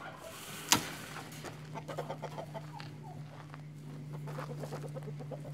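Chickens clucking in short, repeated calls. A single sharp knock comes under a second in, and a steady low hum runs beneath from about a second in.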